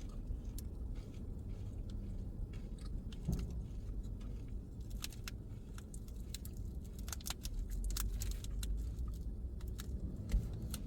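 Car cabin noise while driving: a steady low rumble of engine and tyres, with scattered light clicks and rattles.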